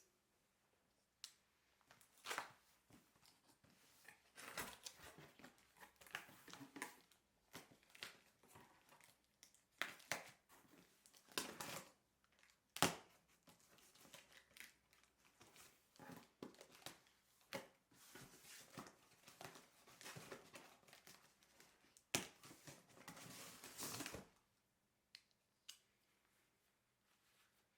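Packaging being handled and torn open, with crinkling and tearing in irregular bursts and sharp clicks and snaps in between.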